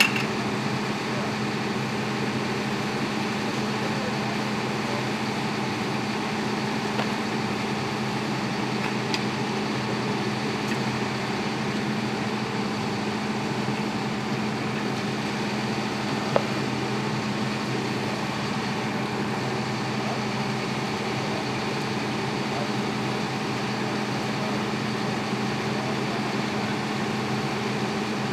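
Fire truck's engine running steadily, a constant hum that does not change, with one sharp click about sixteen seconds in.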